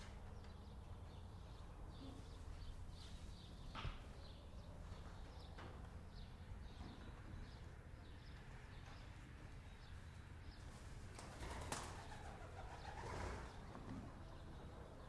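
Chickens calling softly in a barn, over a steady low hum. There is a sharp knock about four seconds in and a louder stretch of calls around twelve to thirteen seconds.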